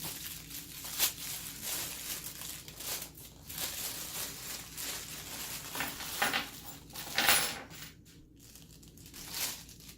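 Plastic bag crinkling as a bag of base-mounting hardware is torn open and handled, with the bolts and washers inside clinking; sharpest about a second in and again about seven seconds in.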